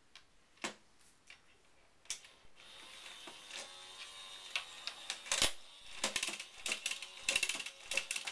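Small toy mechanism working: a few separate clicks, then a steady whir from about two and a half seconds in, turning into rapid ratcheting clicks near the end, like a coin-eating toy robot bank chewing a coin.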